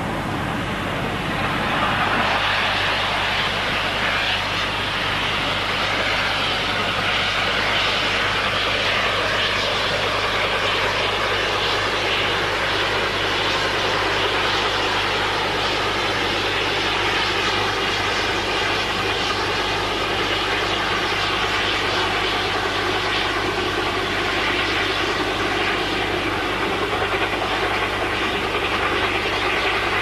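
Steam locomotive working hard: a steady rushing noise of exhaust and running gear that builds about two seconds in and holds, with no separate beats picked out.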